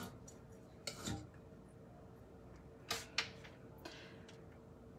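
Spoon scraping cookie dough out of a glass mixing bowl and dropping it onto parchment paper: a few faint scrapes and clicks, about a second in and again around three seconds in.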